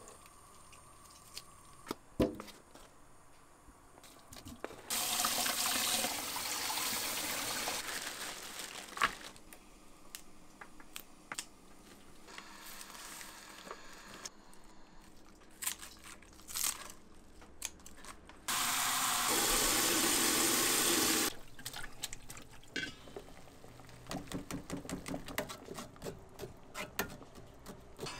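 Kitchen tap running into a stainless-steel sink in two stretches, the second, louder one starting and stopping sharply, with scattered clicks and knocks of kitchen handling in between.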